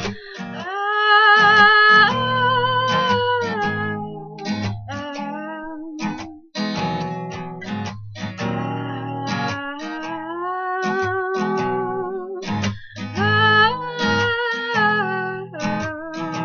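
Acoustic guitar strummed in a steady rhythm while a woman sings long, held notes over it.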